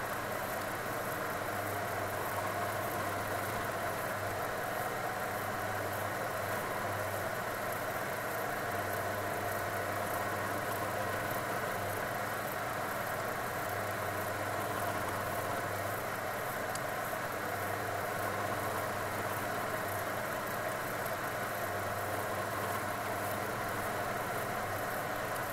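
Milling machine running steadily with a constant hum, its gear cutter cutting the teeth of a 72-tooth brass wheel held in a dividing head.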